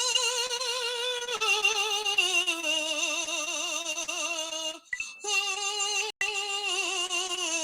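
A high singing voice holding long notes with a strong, even vibrato. It steps down in pitch twice in the first few seconds and breaks off briefly twice near the end.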